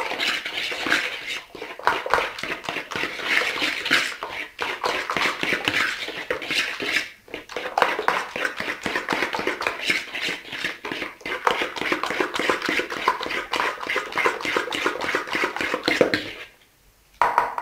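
Metal fork whisking a frothy liquid mixture fast in a plastic bowl: rapid tapping against the bowl with splashing, stopping suddenly about sixteen seconds in.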